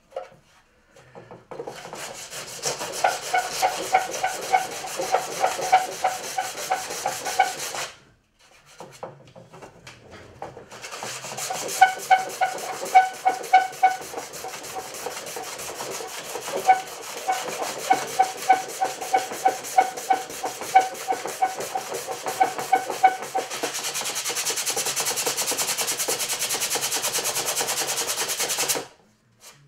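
Sandpaper rubbed by hand along a glossy white model ship hull in quick back-and-forth strokes, about two to three a second, with a squeaky pitch in the strokes. The sanding pauses for a couple of seconds about eight seconds in. Near the end it turns into a smoother, even hiss before stopping.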